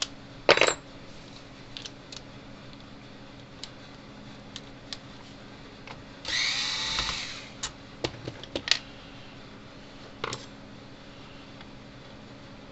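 Clicks and knocks of parts being handled in an open plastic fence-charger case as the transformer is worked loose, with one louder knock about half a second in. About halfway through comes a single whir about a second long.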